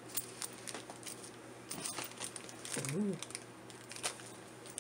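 Small plastic zip-lock bag of metal bead connectors crinkling and rustling as it is handled, with scattered light clicks. A brief murmured voice sound about three seconds in.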